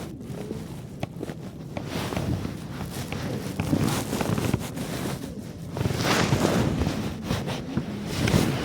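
Wind buffeting the microphone in uneven gusts, with a few faint clicks.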